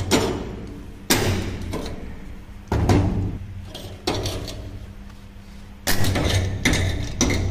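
Stick arc welding: the electrode is struck on overlapped steel plates to tack-weld a lap joint, giving several sudden bursts of crackling arc noise, each fading over a second or so, the longest from about six seconds in. A steady low hum runs underneath.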